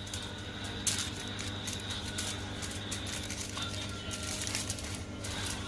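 Aluminium foil crinkling and rustling as hands fold and press it tightly around a roll of embutido, with irregular small crackles throughout over a steady low hum.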